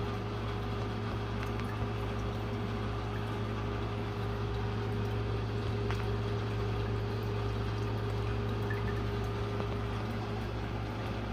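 Aquarium filter pump humming steadily, with a low drone and a faint even hiss of moving water.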